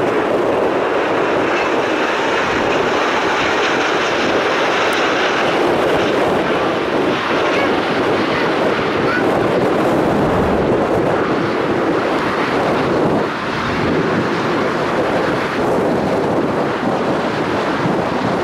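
Airbus A340-600 four-engine airliner on final approach and landing, its jet engines making a loud, steady noise mixed with wind buffeting the microphone. A faint high whine sits over it in the first few seconds.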